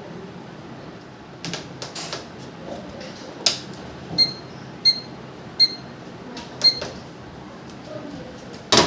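Four short high electronic beeps from a digital kitchen scale's buttons, mixed with several sharp clicks and knocks of bowls being set down and handled. The loudest knock comes just before the end.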